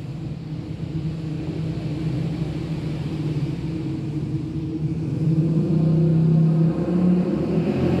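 Cosmos orbit ceiling fan's motor running with a steady low hum, growing louder in the second half.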